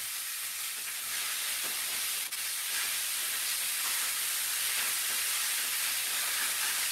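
Seasoned rabbit pieces sizzling in hot fat in a frying pan, a steady high hiss that gets a little louder about a second in: the sizzle that shows the pan is hot enough as the meat goes in to brown. A single faint click sounds a little past two seconds.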